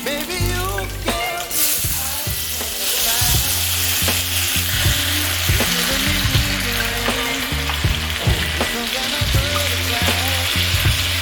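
Tomato and onion frying in hot oil in a pan, a loud sizzle that jumps up about a second and a half in and grows fuller about three seconds in, with stirring.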